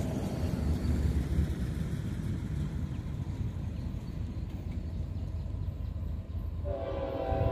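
Steady low rumble, then near the end an approaching train's horn starts sounding a steady chord of several notes.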